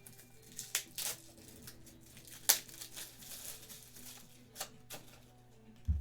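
Trading-card pack wrappers being crinkled and torn open, with a few sharp crackles, the loudest about halfway through.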